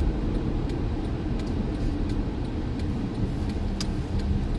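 Steady low rumble of a car running, heard from inside the cabin, with a few faint clicks.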